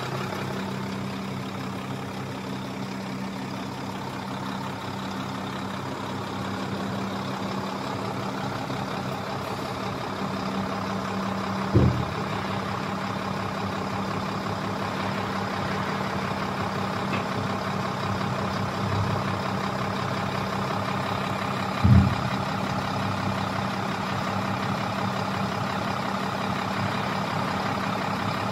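Sinotruk HOWO dump truck's diesel engine idling steadily, with two short sharp thumps about ten seconds apart.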